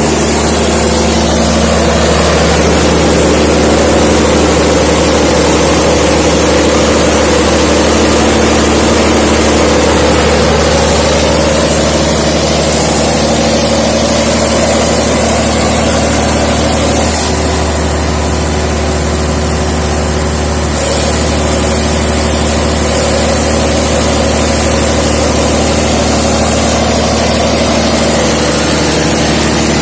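600 kVA diesel generator running steadily, loud, with a high whine over the engine note. For a few seconds past the middle the sound turns slightly quieter and duller, then returns.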